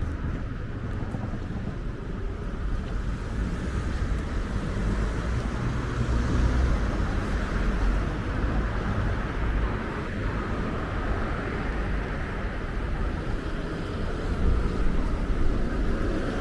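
City street traffic: a steady rumble of cars and vans driving past, swelling as a car goes by about halfway through, with low wind buffeting on the microphone.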